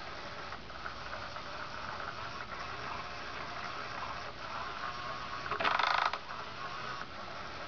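Battery-powered Undercover Mouse cat toy running: its small motor whirs and rattles steadily as the wand sweeps around under the nylon skirt. About two-thirds of the way in there is a louder rattling burst lasting about half a second.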